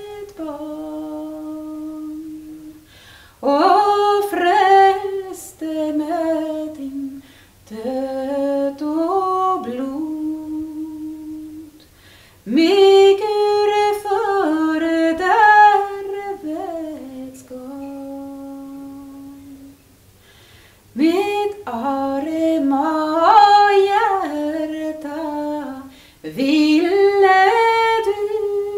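A woman singing a slow song alone, without accompaniment, in phrases of a few seconds that often end on a long held note, with short breaths between them.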